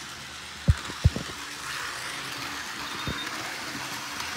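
Steady hiss with three short, dull low thumps, about a second in, just after, and near three seconds: handling bumps from a handheld phone camera being moved about.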